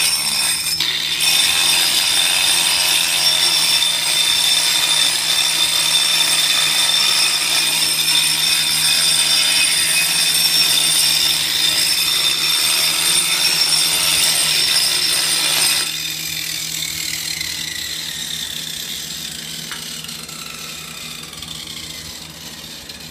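4.5-inch angle grinder with a diamond turbo wheel grinding thinset mortar off a concrete floor, a loud steady high-pitched whine. About two-thirds of the way in the grinding stops and the motor winds down with a slowly falling whine.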